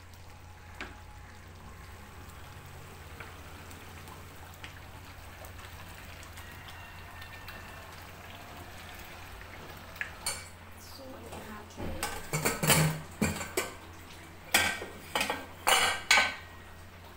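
Egg curry simmering softly in a frying pan while it is stirred with a wooden spatula. From about ten seconds in come loud clatters of steel pots and lids, a quick run of knocks and then a second run.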